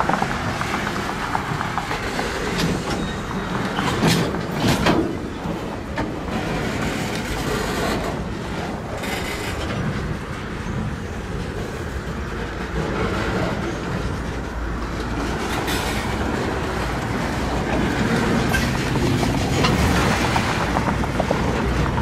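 Freight cars rolling past close by: a steady rumble of steel wheels on rail, with clicks and clanks as the wheels cross rail joints and a few louder clanks about four to five seconds in.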